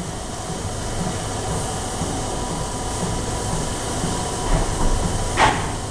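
Dairy barn machinery running steadily, with a faint steady whine over it. A few short knocks or clanks come about four and a half to five and a half seconds in.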